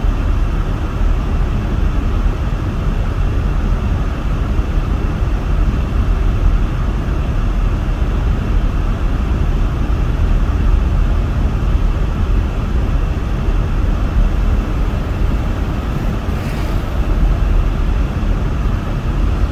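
Steady in-cabin drone of a car driving on a snowy highway: tyre and engine rumble mixed with the heater fan blowing hard on the windshield defrost.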